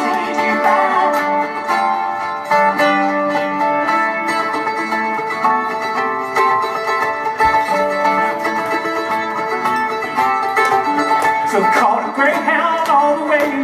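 Live duo music in a country/bluegrass style: a guitar picking a steady rhythm under sustained melody notes, an instrumental passage without singing.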